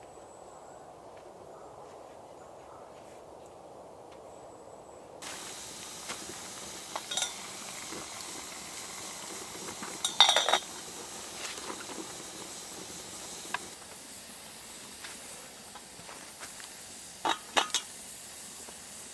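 After about five seconds of faint low background, a metal camp kettle hisses and sizzles over a wood fire. Its wire handle and lid clank sharply about ten seconds in as it is lifted off on a stick. A few more metallic clinks come near the end as it is set down.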